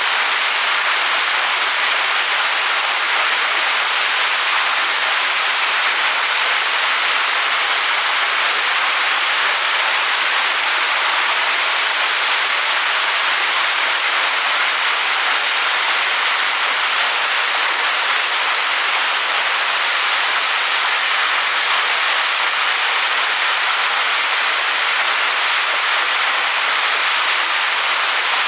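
Waterfall pouring onto rocks: a steady, loud rush of splashing water that stays even throughout, hissy and bright with little low rumble.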